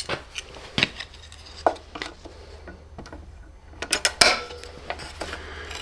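Scattered metallic clicks and clinks from a pair of locking pliers (vise grips) being handled and clamped onto a screw head in a wooden board, the loudest cluster about four seconds in.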